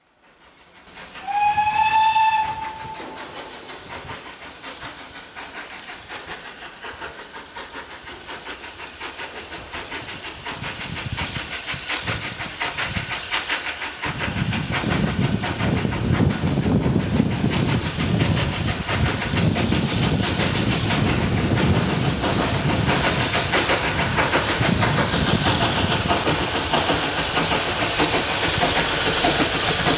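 SECR C class 0-6-0 steam locomotive No. 592 gives one short whistle about a second in, then works its train out of a tunnel. Its exhaust and running grow steadily louder and become much fuller about halfway through as it clears the tunnel mouth and approaches.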